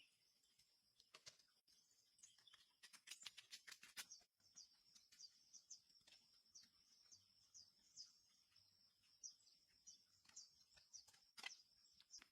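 Faint small-bird chirps, short and high, repeating about once or twice a second over a steady high-pitched whine, with a quick run of clicks about three seconds in.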